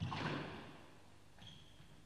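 A squash ball is struck hard by a racket, a sharp crack that rings on in the court, and then a player's shoe gives a brief squeak on the court floor about a second and a half in.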